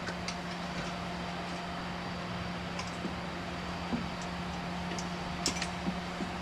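A steady background hum, with a few faint light clicks and taps of exhaust pipe sections being handled and positioned under the car.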